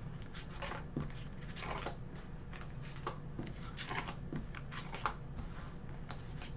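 Tarot cards being slid out of a fanned spread on a cloth-covered table and gathered in the hand: soft, irregular card rustles and flicks, several a second.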